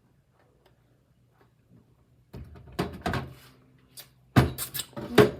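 A run of irregular knocks and clatters starting a little over two seconds in, like kitchenware being handled.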